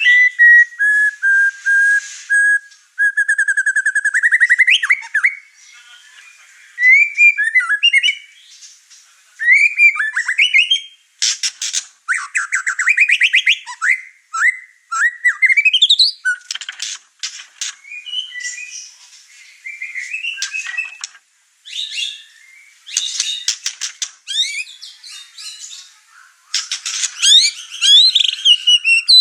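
White-rumped shama (murai batu) singing a long, fast, varied song of whistles, rapid trills and rising glides. It is pouring out its repertoire of learned phrases in an excited burst.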